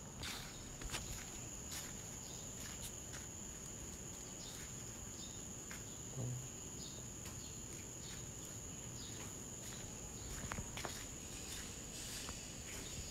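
Insects trilling in a steady high tone, with scattered light footsteps on ash-dusted pavement.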